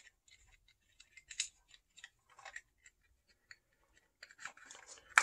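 Light plastic clicks and scrapes as the battery cover is slid along the battery compartment of a Tecsun AN-48X antenna's control unit, with one sharper click near the end.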